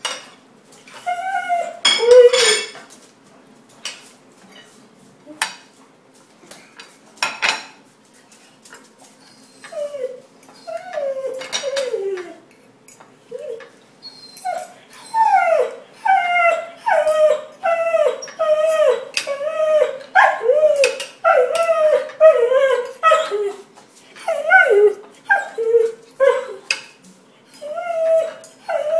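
Dog whining for food at the table in short cries that bend in pitch, sparse at first, then about one a second from roughly halfway through. Occasional cutlery clinks on plates.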